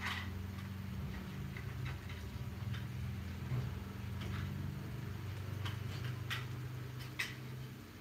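Chicken curry simmering in a wok, with irregular small pops and ticks of bubbles bursting, over a steady low hum.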